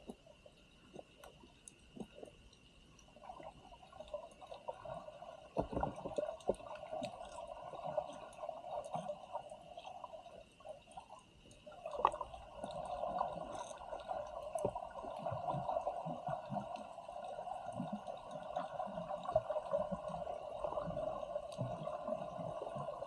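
Muffled underwater ambience: a hum that comes in a few seconds in, drops out briefly about halfway through and returns, with scattered faint clicks and crackles.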